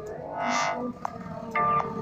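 Background electronic music: short synthesizer notes, with a fuller, brighter note about half a second in and another chord near the end.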